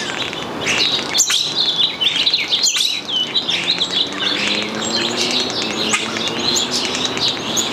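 European starling singing: a rapid, continuous jumble of chirps, whistles and clicks. From about four seconds in, a faint low drone rises slowly in pitch beneath it.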